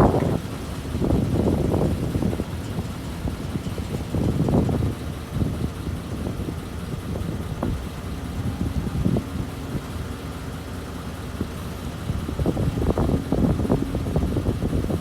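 A heavy diesel engine running steadily at low speed, with irregular louder swells of low noise every few seconds.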